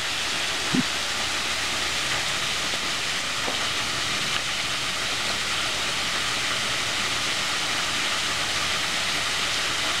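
Steady, even hiss with no breaks or rhythm, and one brief low pitched blip just under a second in.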